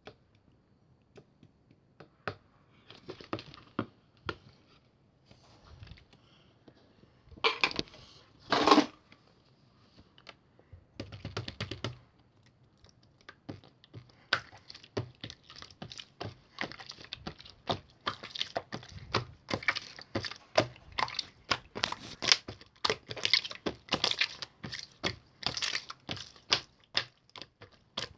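Slime being pressed, squished and poked by hand, giving off sharp crackling clicks and pops. The clicks are sparse at first, with a louder burst a third of the way in, and come in a quick, steady run from about halfway on.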